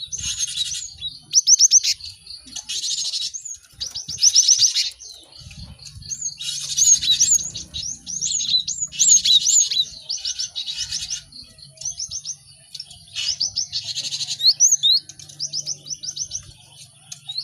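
Cinereous tits (gelatik batu) calling busily: dense bursts of rapid chattering notes alternate with quick runs of clear, sharp whistled notes, in phrases that come every second or two.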